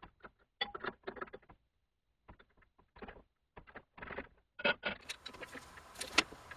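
Scattered light metal clicks and clinks of an open-end wrench being fitted to and turned on a nut on a lathe draw bar, with steel parts at the chuck being handled.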